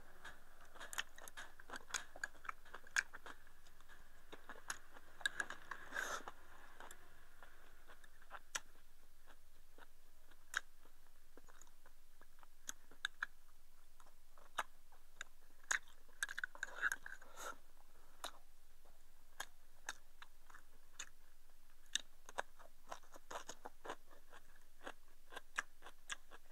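A person eating rice with chopsticks from a small bowl: faint chewing and mouth sounds with many scattered short, sharp clicks.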